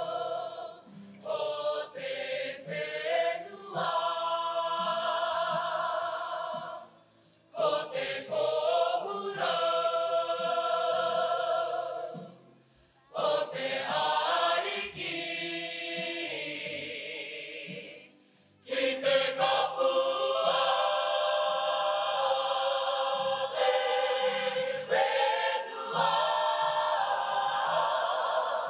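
Background music of a group of voices singing together in held, harmonised phrases, with short pauses between phrases about 7, 12 and 18 seconds in.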